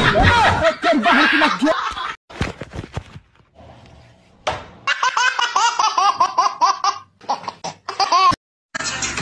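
A baby laughing hard, a rapid run of high squealing laughs about four a second that cuts off suddenly near the end. Before it come loud voices and a few sharp knocks.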